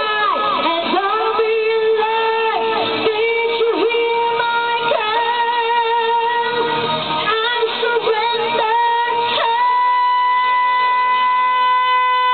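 A girl's voice belts long, sustained sung notes into a handheld microphone, amplified over a karaoke backing track. About three-quarters of the way through she jumps up to a higher note and holds it steady to the end.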